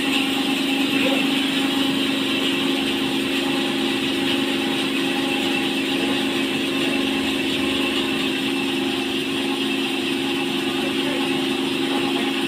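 Sawmill band saw running steadily while it saws a log lengthwise, a continuous hum with a hiss above it.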